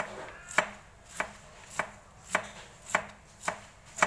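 Knife slicing a pineapple into thin slices on a plastic cutting board: a sharp, evenly paced knock of the blade on the board a little less than twice a second.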